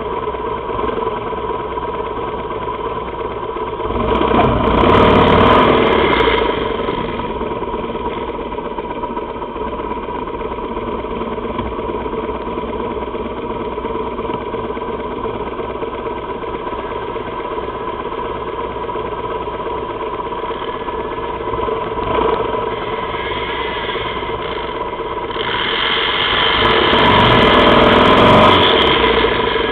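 Drag-racing motorcycle engine idling steadily. It swells into two louder stretches of revving: one about four to six seconds in, and one near the end.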